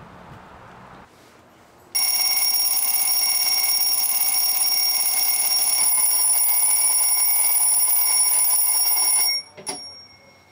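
Alarm clock ringing with a loud, steady, high-pitched ring that starts suddenly about two seconds in and cuts off abruptly about seven seconds later. A short knock follows just after it stops.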